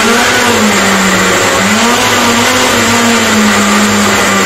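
Kenwood countertop blender motor running loudly at speed, its blades churning a jug of green vegetable mix for juice. A steady whir over a hum whose pitch dips and recovers slightly as the load shifts.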